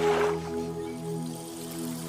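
Instrumental background music: soft held notes over a low note that pulses about twice a second, with a brief whooshing swell just after the start.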